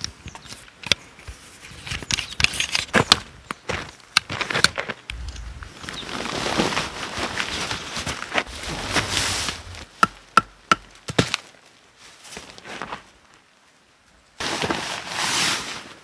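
Sharp clicks and knocks of tent gear being handled, then tent fabric rustling and flapping as a shelter is pitched, in a long stretch through the middle and a second loud burst near the end.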